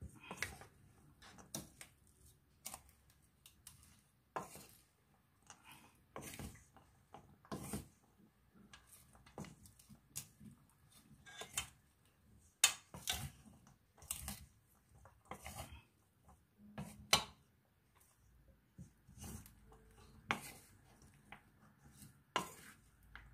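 Spoon and fork clinking and scraping against a stainless steel mixing bowl as shredded vegetables and bean sprouts are tossed with flour. The clinks and scrapes come irregularly, about one or two a second, with a few sharper knocks around the middle.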